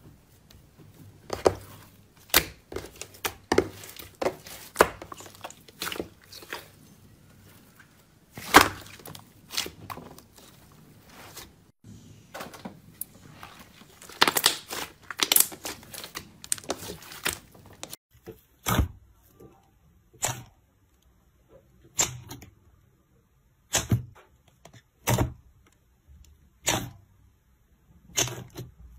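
Slime being pressed, stretched and kneaded by hand: sticky squelches and pops coming in quick irregular clusters. Later come single, separate pops about every one and a half seconds as fingers push into a tub of thick slime.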